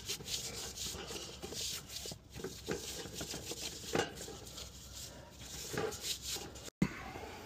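A cloth wipe rubbing and scrubbing over the sheet-steel dead-front cover of a breaker panel in short, uneven strokes, with a light tick about four seconds in.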